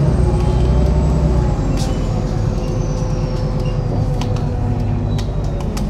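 MAZ-103 city bus under way, heard from inside the passenger cabin: the engine runs steadily beneath a high whine that slowly falls in pitch, with light rattles and clicks from the body.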